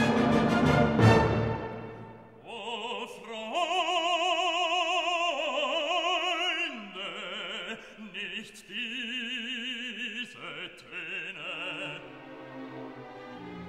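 Background classical music: a chord dies away in the first two seconds, then a voice sings long, wavering notes with strong vibrato over a soft accompaniment.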